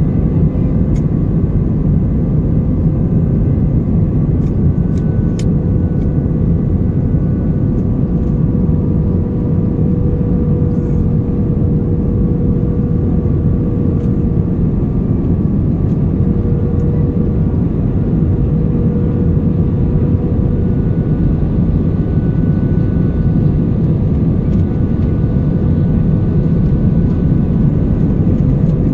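Airbus A320 cabin noise on final approach, heard from a window seat over the wing: a steady low rumble of engines and rushing air with a faint steady drone, unchanging throughout.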